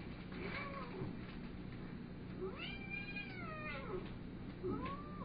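Domestic cats meowing: three meows, a faint one about half a second in, a long one rising and falling in the middle, and a shorter one just before the end.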